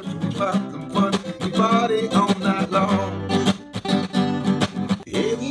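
A song played on strummed acoustic guitar.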